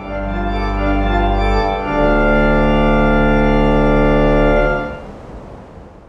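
Intro music of sustained, held chords over a deep bass, with a change of chord about two seconds in, then fading out near the end.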